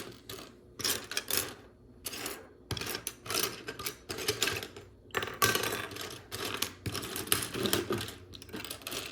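Loose plastic Lego Technic pieces clicking and rattling against each other in quick irregular runs, as someone rummages through them by hand.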